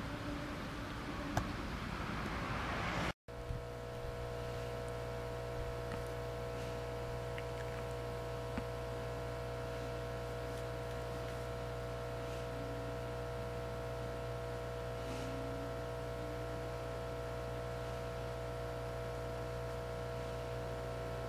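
A hiss grows louder for about three seconds and then cuts off suddenly. A steady machine hum with several constant tones follows and runs on unchanged, with a few faint ticks.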